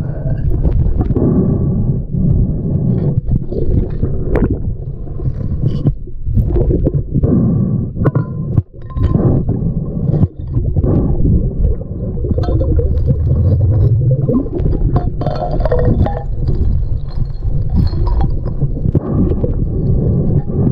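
Muffled underwater sound of a river: a steady low rumble of current and water against the camera, with scattered sharp clicks and clinks of glass, a plate and gravel knocking together as a gloved hand digs through the riverbed.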